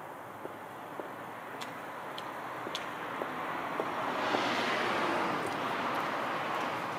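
High-heeled shoes clicking on asphalt, about two steps a second. A passing vehicle's noise swells about four seconds in and stays up, the loudest sound by the end.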